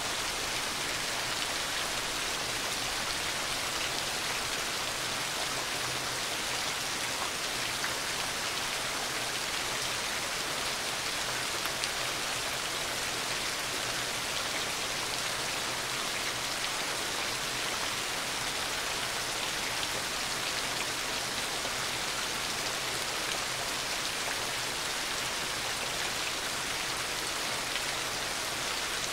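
Heavy rain falling steadily, an even hiss of many drops with no breaks or claps of thunder.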